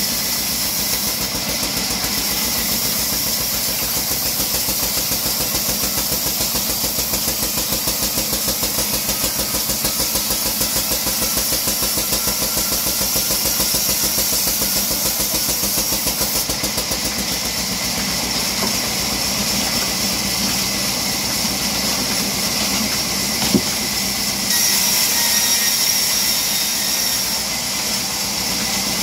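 A 48-inch vertical band saw running steadily while a log is fed through its blade, with a fast, even pulsing from the machine. A single sharp knock stands out late on.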